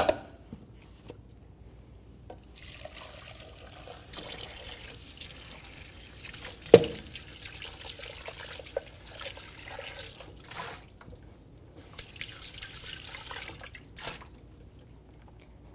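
Kitchen tap running into a stainless-steel sink, on and off, as things are rinsed, with a sharp knock about seven seconds in.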